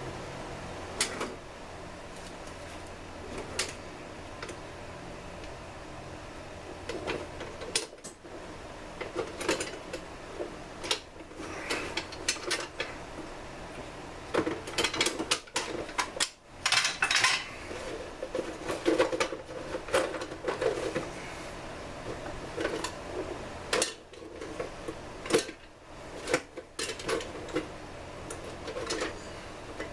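Small parts being handled on a workbench: irregular clicks, taps and clatter of small hard pieces, busiest in the middle with a short rustle, over a low steady hum.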